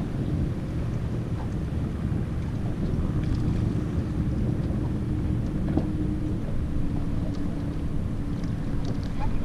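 Wind buffeting the microphone and water moving along the boat's side, a steady low rumble, with a faint steady hum underneath from about two seconds in.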